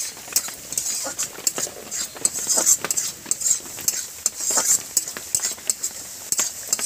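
Onions frying in hot oil with a steady sizzle, while a spatula scrapes and clinks against the pan in quick, irregular strokes as the freshly added turmeric is stirred in.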